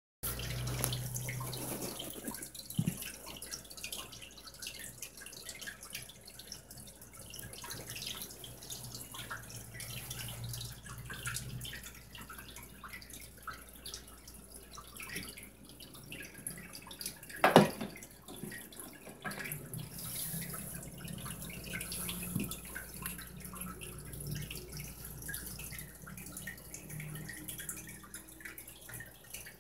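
Water trickling and dripping steadily in a home fish tank, over a low steady hum. A sharp knock comes about seventeen seconds in.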